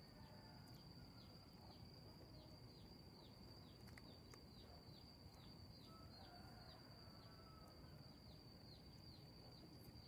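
Faint outdoor ambience: a steady high-pitched insect drone with short falling chirps repeating about three times a second, and a few faint bird calls.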